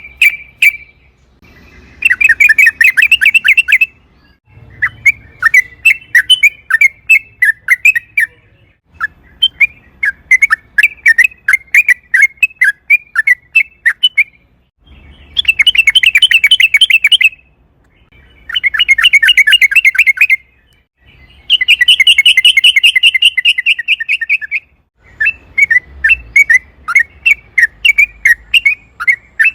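Yellow-vented bulbul (trucukan) singing loudly in repeated bubbly phrases, some run together into long, rapid rolling trills (the 'ropel panjang' prized by keepers) and others as looser strings of quick chirps, with short pauses between phrases.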